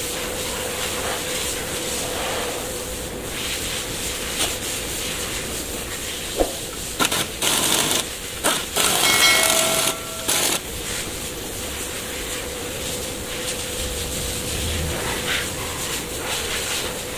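Steady workshop hum with a few light tool clicks; about seven seconds in, several short, loud bursts of hissing air, one with a whine, typical of a pneumatic air tool.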